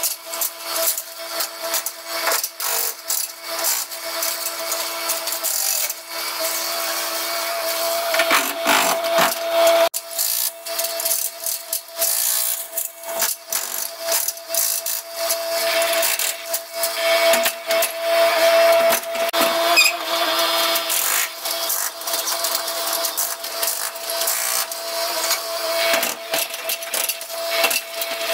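Hydraulic breaker on a Yanmar mini excavator hammering through a single-layer brick wall, with irregular clattering knocks of breaking and falling brick over the machine's steady hum of several tones.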